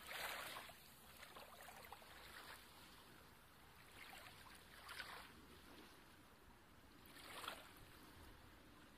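Near silence: faint trickling and lapping of shallow tide-pool water, swelling softly a few times.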